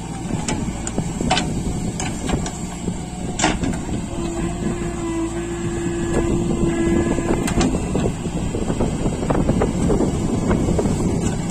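Heavy diesel engines of a JCB backhoe loader and tractors running hard together, a dense low rumble with scattered metallic knocks and clanks. A steady tone rises out of the noise for about three seconds in the middle, and the engine noise grows a little louder in the second half.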